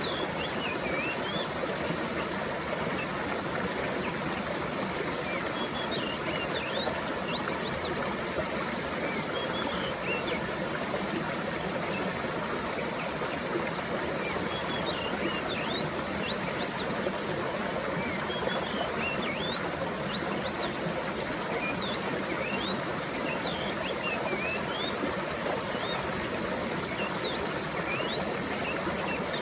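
Mountain stream flowing steadily, with small birds chirping throughout in short, quick upward-sweeping notes.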